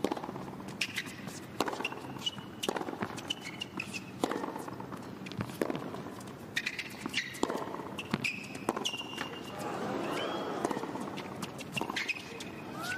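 Tennis rally on a hard court: racquet strikes on the ball and the ball bouncing, sharp hits spaced about a second apart, with short high squeaks of shoes on the court between them.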